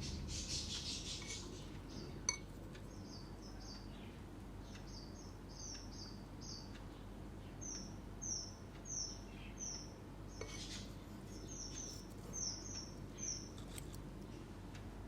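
Bird chirping repeatedly: short, high, falling chirps, two or three a second, in little runs. A brief hiss at the start, a sharp click about two seconds in, and another short hiss past the middle.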